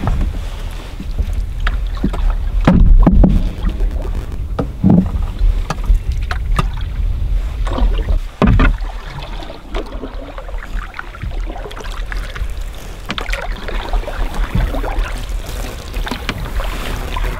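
Canoe being paddled: paddle strokes in the water, with scattered hollow knocks against the hull, over a steady low rumble.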